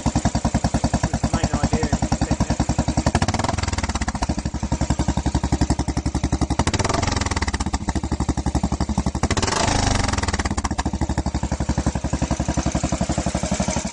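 Royal Enfield single-cylinder motorcycle engine running on the move, its exhaust giving an even, rapid pulsing beat; the engine pitch rises and falls a few times with the throttle.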